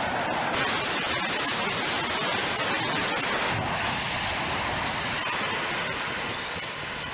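Pressure-fed liquid-oxygen/kerosene rocket engine (USC's 10 kN Balerion) firing on a test stand: a loud, steady roar of rushing noise, with a faint rising whistle near the end. The flange joining the nozzle to the combustion chamber has failed, and the hot gases escape as a fireball instead of going through the nozzle.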